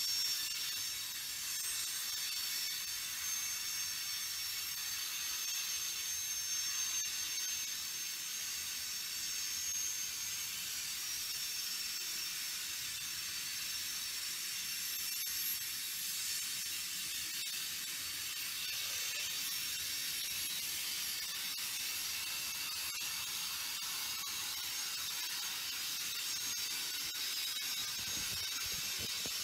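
Freight cars of a passing train, tank cars and gondolas, rolling by on steel wheels: a steady rolling hiss with a few faint, thin high tones over it.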